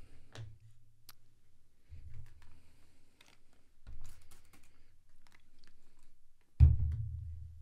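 Small clicks and taps of caliper parts, cotton buds and a plastic spray bottle being handled on a cutting mat, with a few dull knocks and one heavier thump near the end as something is set down.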